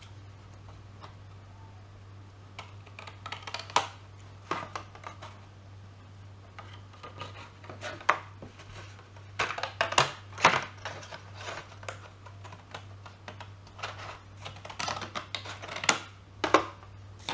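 Scissors snipping through a folded paper card in a series of irregular cuts, with the card rustling as it is handled.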